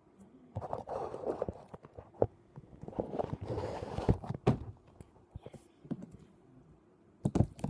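Fingers poking and pressing sticky slime on a metal tabletop, giving irregular clicks and small pops, with a few sharper knocks and a cluster of them near the end.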